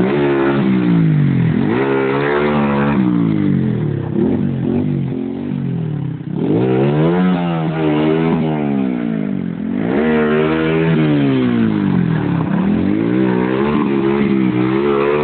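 Honda CBR125R's single-cylinder four-stroke engine being revved hard. Its pitch climbs and falls back in repeated long swells, with three big rises.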